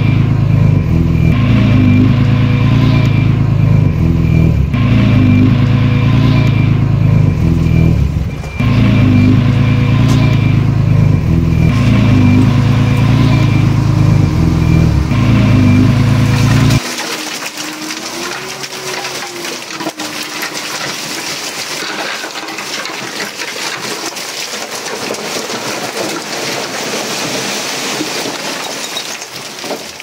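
A heavy diesel engine of an earthmoving machine running steadily under load, dipping briefly about eight seconds in. A little past halfway it cuts off abruptly and a steady rushing noise like wind or water takes over.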